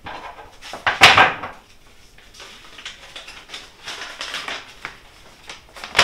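Handling noises as a sheet of paper is fetched: a loud, sudden bump or scrape about a second in, then intermittent rustling with small clicks.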